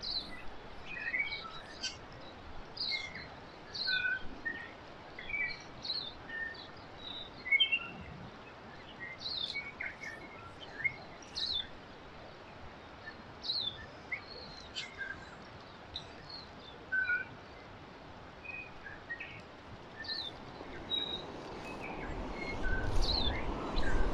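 Many short bird chirps and whistled notes, one after another, over the steady rush of a shallow stony river. The water noise grows louder near the end.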